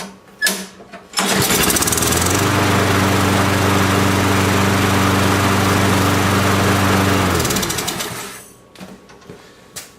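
Briggs & Stratton Quantum single-cylinder four-stroke engine on a push lawn mower, pull-started and catching about a second in. It runs at a steady speed for about six seconds, then is shut off and winds down.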